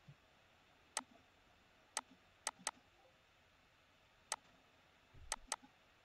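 Computer mouse clicking, about seven sharp clicks at irregular intervals, some in quick pairs.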